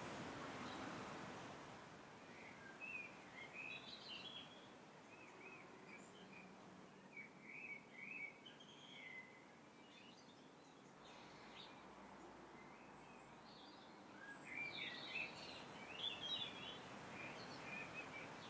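Small birds chirping and twittering in two spells of quick high notes, over faint outdoor background noise.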